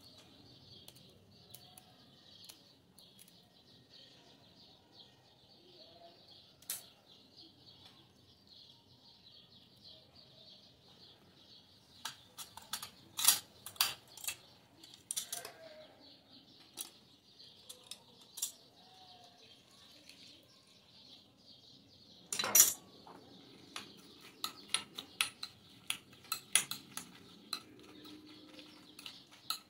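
Kitchen utensil sounds: clicks and clinks of a metal hand lemon squeezer near the middle, one sharp knock about three-quarters through, then a metal spoon clinking quickly and repeatedly against a glass bowl as the mix is stirred near the end.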